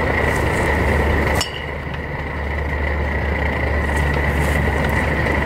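Portable cartridge gas stove burning steadily under a pot of soup as it is stirred, with a light spoon clink about a second and a half in, where the sound dips briefly before building back.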